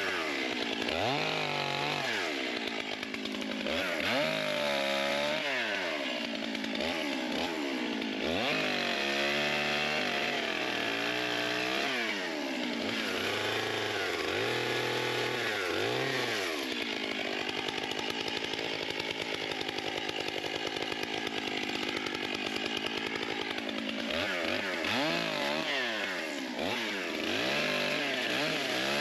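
Two-stroke chainsaw cutting pine, revving up and falling back again and again, with a longer steady stretch under load in the middle.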